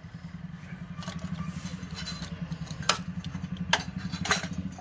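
A small engine running at a steady idle with a fast even pulse, and several sharp metallic clinks of tools on metal.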